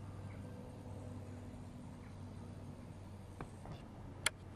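Faint, steady low hum of a distant train approaching along the line, with a few sharp clicks near the end.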